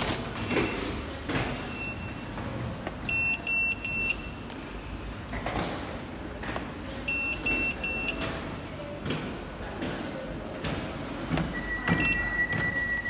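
London Underground paddle ticket gates: the card readers give short high beeps, a quick run of three twice, then a longer steady tone near the end. Between the beeps the gate paddles' motors run and the paddles knock, over the hum of the station hall.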